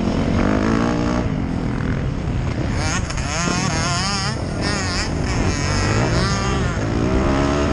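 Motocross dirt bike engine heard from the rider's helmet camera, its pitch rising and falling quickly and repeatedly as the throttle is worked through the turns and ruts.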